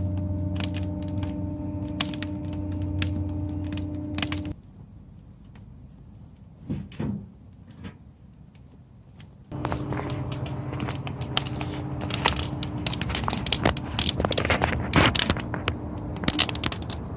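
Brash fire crackling and popping densely inside a barrel fire-tornado burner, over a steady low hum. The sound drops away abruptly for about five seconds in the middle, then the crackling and hum return.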